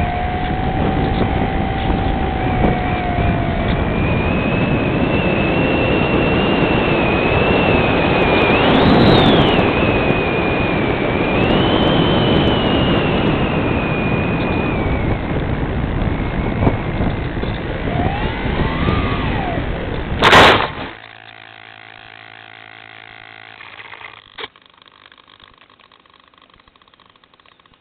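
Electric motor and propeller of a Multiplex Cularis model glider, heard from its onboard camera with loud wind rush, its whine rising and falling with the throttle. About twenty seconds in there is a loud impact as the plane comes down in tall grass. After that the motor and wind stop and only a faint steady hum is left.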